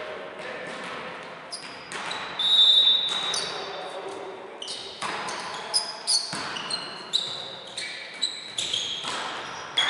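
Indoor volleyball rally on a hardwood sports floor: players' shoes squeak sharply and repeatedly, the ball is struck with hard knocks, and players shout. The loudest sound is a high-pitched squeak about two and a half seconds in.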